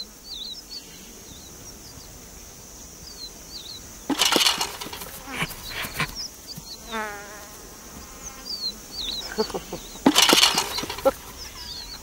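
Insects buzzing steadily with short bird chirps over grassland, broken by two sudden loud noisy bursts, about four and ten seconds in, and a short pitched call near the middle.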